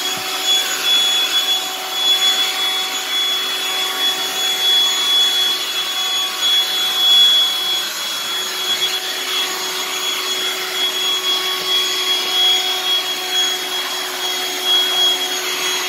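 Black & Decker CHV1410L 16-volt cordless hand vacuum running steadily with a high, even whine, powered by a replacement lithium-ion battery pack of four 18650 cells in series; suction as good as new.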